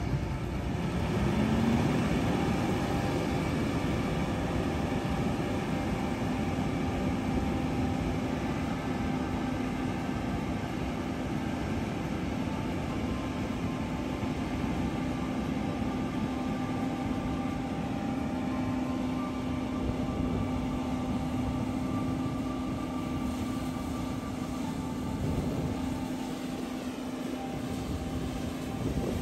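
John Deere combine running and driving off: the engine note rises about a second in, then holds as a steady drone with a hum over a low rumble.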